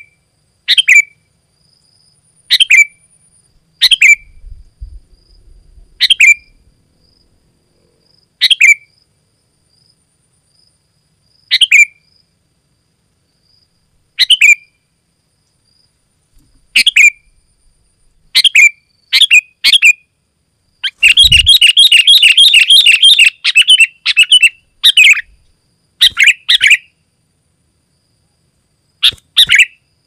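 Sooty-headed bulbul (kutilang) calling: short bright notes every two to three seconds that quicken after the middle into a rapid chattering run about two-thirds through, then go back to separate calls.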